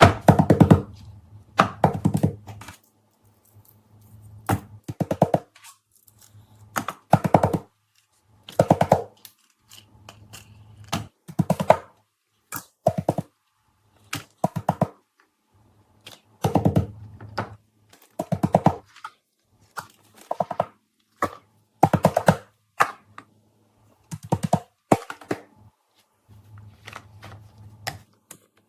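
Short clusters of rapid clicks and knocks, each about a second long, repeating every one to two seconds with brief quiet gaps between them.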